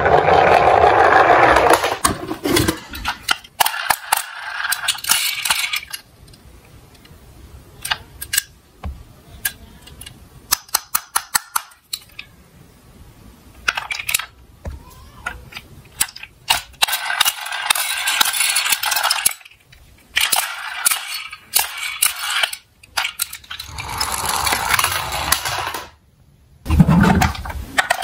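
Die-cast toy cars clicking and clinking against each other and against the track, with stretches of rattling rolling noise as they run down a slope.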